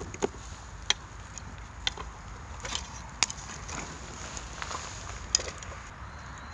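Pine cones burning in a shichirin clay grill, crackling with about half a dozen sharp pops spaced irregularly.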